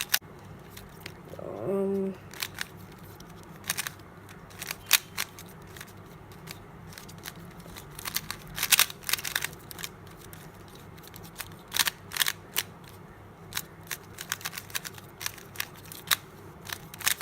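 Plastic clicking and clacking of a GAN Rubik's Speedcube turned fast in a speedsolve, in irregular flurries of sharp clicks. The cube is not yet lubricated and is still a bit bumpy.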